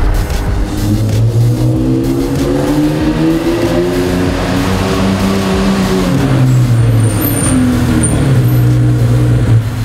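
Porsche 911 flat-six engine accelerating, its pitch climbing for several seconds. The pitch drops at a gear change about six seconds in, and the engine then runs steadily.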